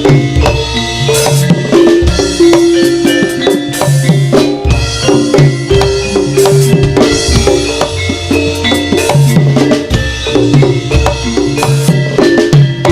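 Live Javanese turonggo (horse-dance) ensemble music: driving drums and percussion under a repeating line of held melodic notes.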